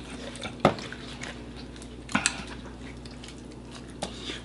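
Table noises while eating chicken wings: two sharp clinks of dishes, the first well under a second in and the second about two seconds in, with quieter clicks and handling sounds between them.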